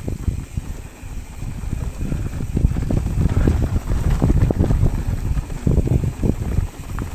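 Wind buffeting the rider's camera microphone, mixed with the low rumble and irregular knocks of a mountain bike's tyres and frame rolling down a rough dirt and rock trail.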